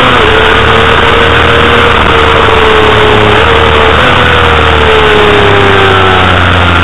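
Honda CBR250RR's 250 cc inline-four engine running hard at high revs on a race track, heard from the bike itself over heavy wind rush on the microphone. The note holds steady with a couple of brief blips midway, then falls gradually near the end as the revs drop.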